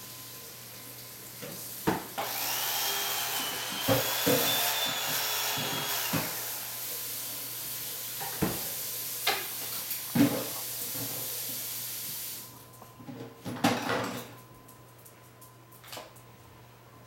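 Electric carving knife running while a roast turkey is carved, a steady motor buzz with a faint whine, and sharp knocks of the blade against bone and cutting board. It switches on about two seconds in and stops about twelve seconds in, leaving a few softer handling knocks.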